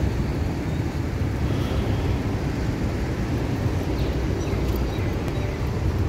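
Wind buffeting the phone's microphone: a steady, fluttering low rumble.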